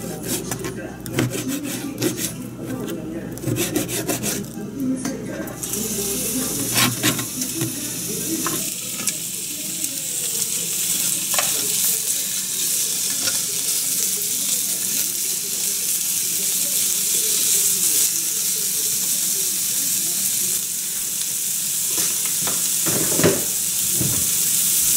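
Raw chicken being cut on a plastic cutting board, with scattered knife clicks; then, about five seconds in, chicken pieces and chopped vegetables start sizzling steadily in a hot nonstick frying pan. Now and then chopsticks click against the pan as the food is stirred.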